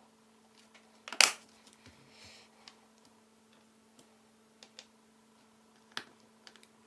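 Scattered light clicks and taps of a small screwdriver and hands on a laptop's plastic back cover as its screws are tightened, with a sharper click about a second in and another near the end.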